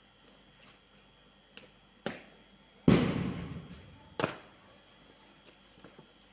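Drill stamps of marching feet on paving: four sharp stamps, the loudest about three seconds in, which trails off briefly. Fainter footfalls fall in between.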